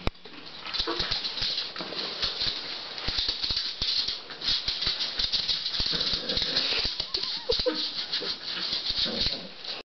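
A small dog's claws clicking and skittering on a hardwood floor as it tugs at a fabric pet bed, with the bed scraping over the boards. The clicking is rapid and continuous, then cuts off abruptly near the end.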